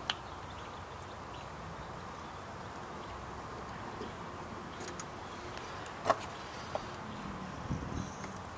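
Hand tap being turned into a hole in a lawn mower engine's flywheel: a few sharp metallic clicks from the tap and its T-handle wrench, the loudest about six seconds in, over steady background noise.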